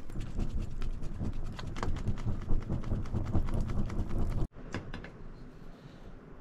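Wood fire in an open clay-and-stone hearth crackling as it is poked and fanned with a plastic lid. The sound cuts off abruptly about four and a half seconds in, leaving a fainter crackle.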